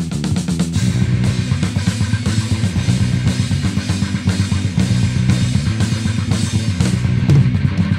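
Rock band playing: a drum kit keeping a steady beat under electric guitar and bass guitar.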